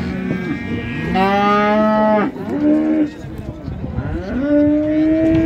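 Cattle mooing: a long call about a second in, a short one right after it, and another long call, rising slightly in pitch, near the end.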